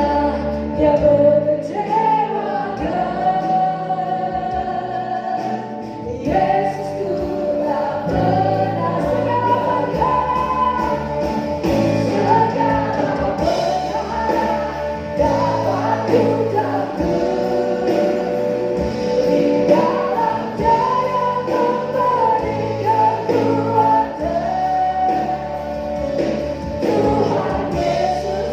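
Choir singing a gospel song with musical accompaniment underneath.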